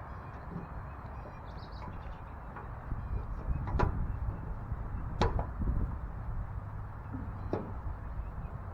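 Three sharp clicks or knocks, a second or two apart, over a low steady rumble.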